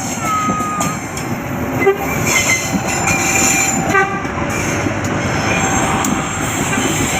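Commuter train running close by, a loud steady rumble of the cars on the rails that grows a little after about two seconds, with two brief sharp pitched sounds at about two and four seconds in.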